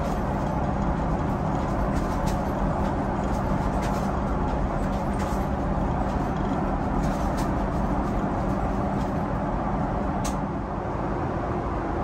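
Steady cabin roar of a Boeing 777-300ER airliner in flight: engine and airflow noise with a low hum underneath, and a few faint clicks.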